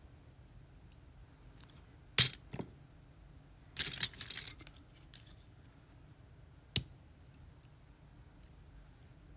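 Sharp metallic clicks and a short rattle of lock-picking tools against a Lockwood lock cylinder: two clicks about two seconds in, a rattling cluster around four seconds, and one more click near seven seconds.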